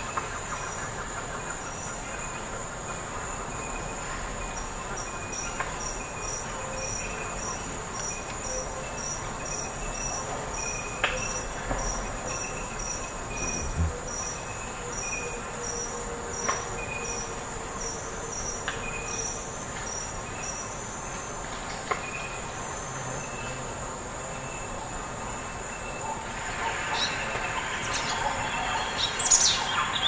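Forest ambience: a steady high insect trill with a high note repeating at an even pace, under scattered bird calls that grow busier near the end.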